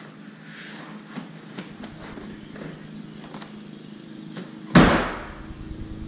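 Mazda Miata's door slammed shut once, about three-quarters of the way in, after a few seconds of light knocks and shuffling as someone climbs into the seat.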